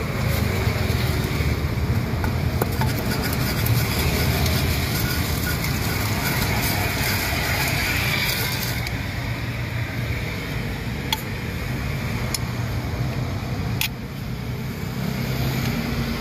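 Wooden pestle grinding peanut sauce for gado-gado on a flat stone mortar (ulekan and cobek), a continuous scraping rumble. A few sharp clicks come in the second half.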